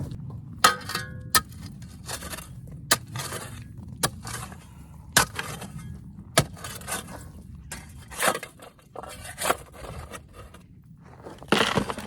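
Rocky gravel being dug and tipped into a sample bucket: irregular sharp clinks and knocks of stones, with a few longer scrapes.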